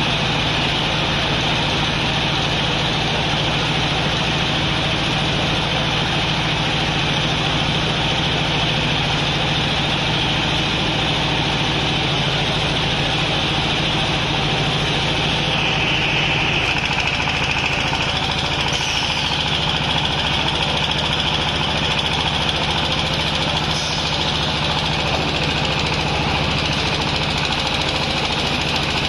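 Baler machine running steadily, a constant mechanical hum with a hissing whine above it; the tone shifts slightly about halfway through.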